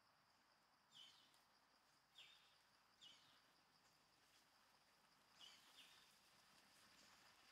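Near silence: faint outdoor ambience with a steady thin high insect hum and five short, high chirps spread across it.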